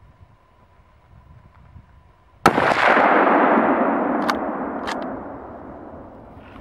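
A single hunting-rifle shot about two and a half seconds in: a sharp crack followed by a long rolling echo that slowly fades over several seconds.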